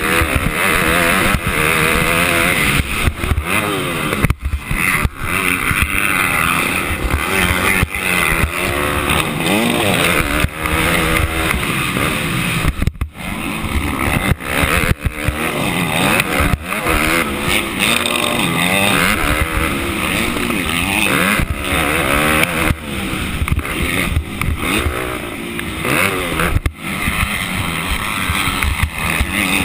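Motocross dirt bike engine revving hard, its pitch climbing and dropping again and again as the throttle is worked through corners and over jumps, with wind rushing over the helmet-mounted microphone. The sound cuts out sharply for a moment a few times.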